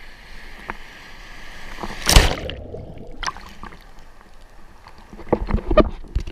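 Sea water splashing and rushing against a GoPro camera in the surf. A loud splash about two seconds in is followed by a short muffled stretch, and more splashes come near the end.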